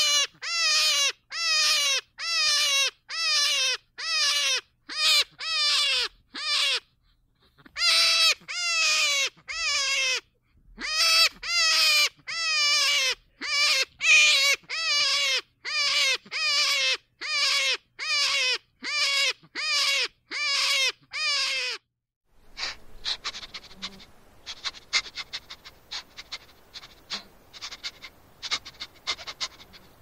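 Hare screaming: a rapid series of short, high cries, each falling in pitch, about two a second with two brief breaks, stopping suddenly about three quarters of the way through. After that only a faint crackling buzz remains.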